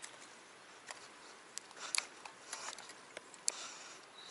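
Faint footsteps and gear handling on a grassy bank: irregular light clicks and rustles, with a double click about two seconds in and a sharper tick about three and a half seconds in.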